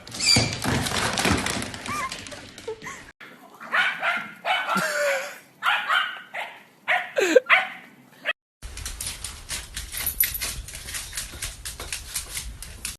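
Dog barking and whimpering in short calls. The sound breaks off abruptly twice as it cuts between separate clips.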